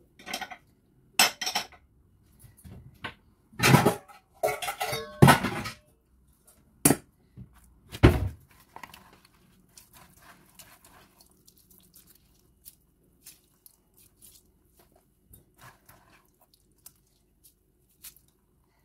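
Clatter of a dish handled while wet ground maize paste is squeezed and rubbed by hand: a run of sharp knocks and clinks through the first eight seconds, then only faint soft scraping.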